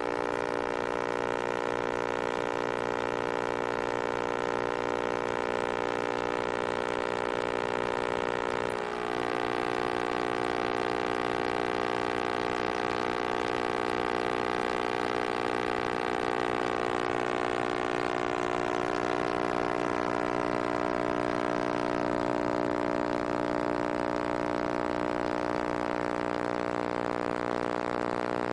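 Microwave ovens running, one inside the other: a steady electrical hum with many overtones. The tone shifts abruptly about nine seconds in, with a short dip in loudness, and some overtones drift slowly a little later.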